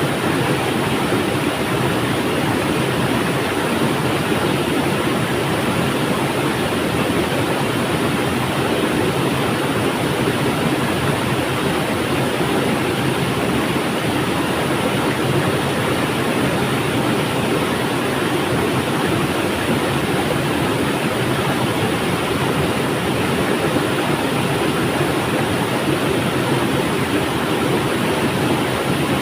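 A river flowing: a steady, unbroken rush of water that holds the same level throughout.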